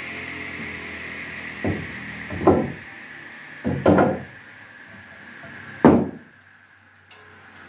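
Home-built 300 mm table saw coasting down after switch-off, a faint whine slowly falling in pitch, while timber pieces are set down on the saw table: five wooden knocks, the loudest about two and a half seconds in and near six seconds.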